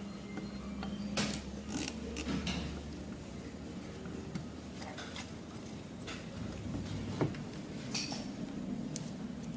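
Scattered light clicks and metallic clinks, about seven or eight spread irregularly, from small parts being handled as a graphics card is reassembled, over a faint steady low hum.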